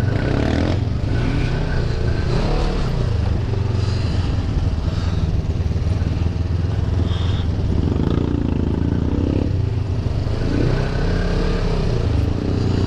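Off-road side-by-side buggy engine running steadily under way, heard from on board, with the engine note swelling and falling back a couple of times.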